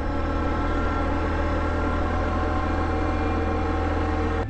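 Can-Am ATV engine running at a steady speed as the quad climbs a gravel road.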